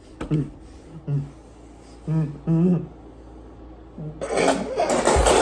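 Muffled closed-mouth hums and grunts from people holding water in their mouths, then about four seconds in a loud spluttering burst as the held water sprays out with laughter.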